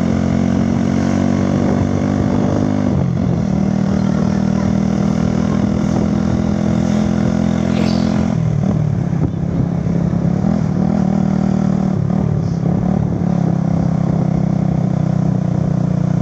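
Motorcycle engine of the moving vehicle running steadily at road speed, with road and wind noise. Its pitch dips and recovers three times, about 3, 8 and 12 seconds in, as the rider eases off and picks up speed again.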